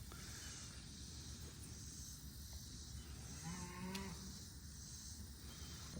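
A faint cow moo, one short low call about three and a half seconds in, over a steady high buzz of insects.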